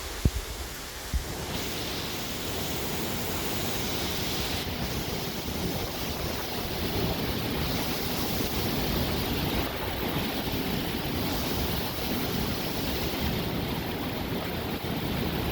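Hurricane wind blowing hard and steadily, swelling and easing in gusts every few seconds. A few low thumps of wind buffeting the microphone in the first second or so.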